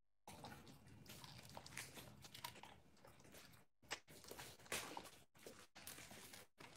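Boxer dog faintly chewing and crunching a hard treat held in a hand, with a few sharper crunches about four and five seconds in.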